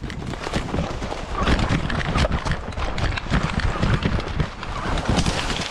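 Quick, irregular thumps and rustling of a person moving fast on foot, with gear jostling close to the microphone.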